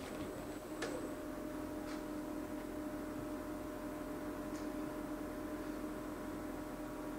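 Romi C420 CNC lathe running with its spindle turning, a steady hum with a faint high whine. A few light clicks come through, about a second in, near two seconds and again past four seconds.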